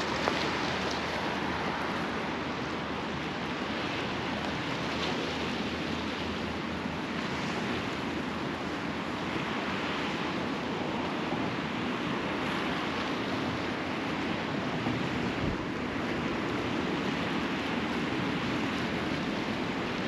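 Sea waves washing steadily onto the shore, swelling softly every few seconds.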